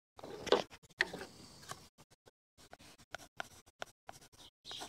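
Scattered light clicks, taps and short scrapes of hand work while a measurement is marked, with a denser run of small clicks in the second half.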